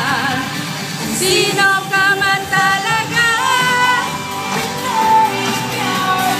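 Recorded pop song playing, a sung melody over a steady instrumental backing, with a run of quick short sung notes in the middle.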